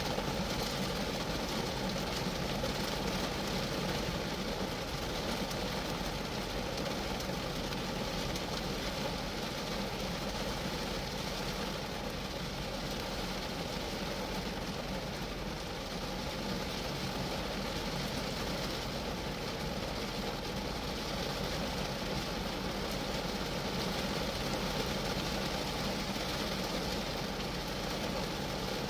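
Steady rain drumming on the metal roof and body of a Geo Metro, an even, unbroken patter with no change in strength.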